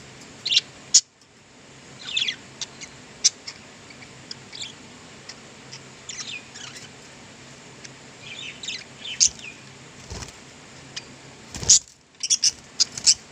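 Budgerigars chirping and chattering in quick short squeaks and warbles, over a faint steady low hum.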